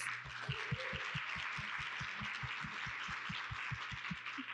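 Audience applauding, with a quick, steady low beat of about five thumps a second underneath that stops shortly before the end.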